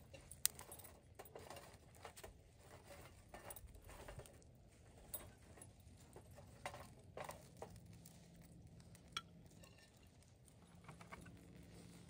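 Faint, scattered small clicks and light clinks at irregular intervals, with no steady rhythm.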